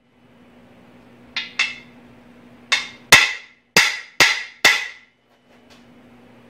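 Hammer blows on a bearing-driver disc, driving a core plug into the cast-iron block of a Jeep 4.0L engine: two light taps, then five hard metallic strikes about half a second apart, seating the plug flush.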